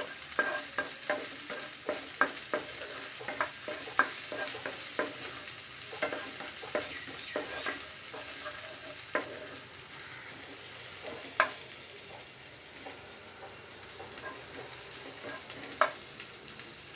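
Sliced onions sizzling in hot oil in a frying pan while being stirred with a wooden spatula. The spatula knocks against the pan several times a second during the first half, then only now and then, with a few louder single knocks later on.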